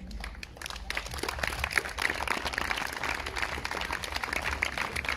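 Audience applauding, a dense patter of many hands clapping that starts a moment in and carries on steadily.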